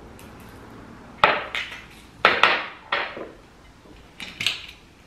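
Kitchen clatter: several sharp knocks and clinks of glass and plastic containers handled and set down on a benchtop.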